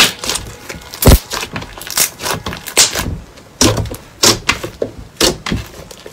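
Slime squeezed and pressed by hand, giving sharp crackling pops and clicks at an irregular pace, about one or two loud ones a second with softer crackles between.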